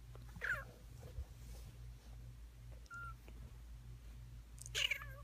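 Young kittens mewing: a short, high, falling mew about half a second in, a faint brief chirp around three seconds, and a louder mew near the end, over a steady low hum.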